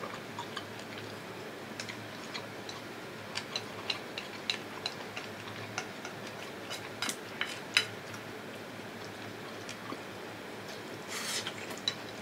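Eating sounds: quiet, irregular small clicks and taps of chopsticks against a bowl, with a short rustle about 11 seconds in.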